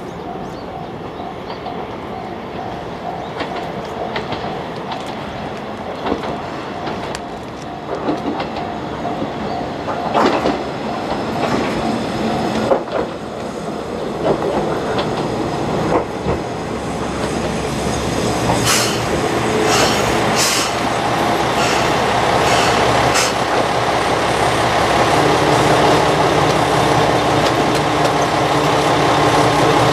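Heisei Chikuho Railway 400-series diesel railcar approaching and pulling into a station, growing steadily louder. Its wheels clack over rail joints, there are several short high squeals as it brakes about two-thirds of the way through, and the diesel engine's hum fills the last seconds as it draws up to the platform.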